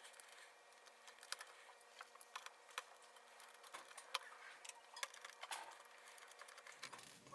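Faint, scattered small clicks and ticks of a small Phillips screwdriver backing out the screws that hold a laptop's LCD panel in its lid.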